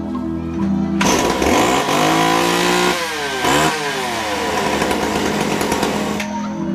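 A chainsaw bursts in about a second in and revs up, then its pitch falls away as it is throttled down. It cuts off about six seconds in.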